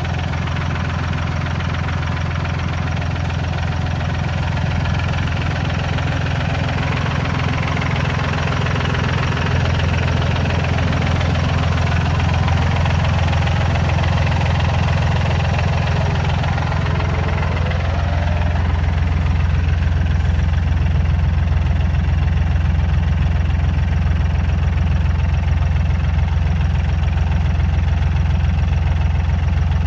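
Fendt 240S tractor's diesel engine idling steadily, getting a little louder in the second half.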